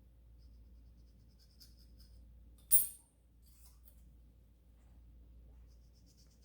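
Faint scratching and snipping as excess felt is trimmed from a piano action knuckle, with one sharp metallic click that rings briefly about three seconds in.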